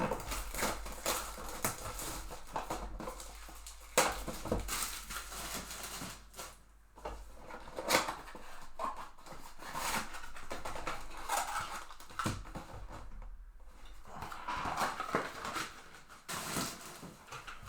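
Packaging of a baseball trading-card mega box and its foil packs being torn open and crinkled, with cards handled: a steady run of rustling and sharp clicks, with a few louder snaps.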